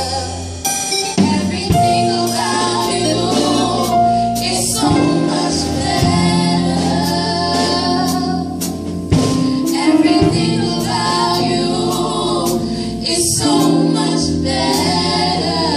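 Live gospel music: a woman singing lead, with two women singing backing, over electric bass guitar and keyboard. Steady sustained bass notes run under the voices, with frequent short sharp percussive hits.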